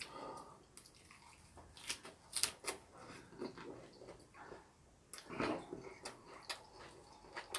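Faint, scattered clicks and small wet sounds of dishes and utensils being handled at a meal table, with a few sharp clicks about two seconds in and a softer cluster past the midpoint.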